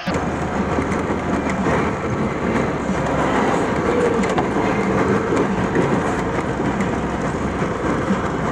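Lada Niva driving along a rough, muddy dirt track, heard from inside the cabin: the engine runs with a steady low hum under dense road and body noise.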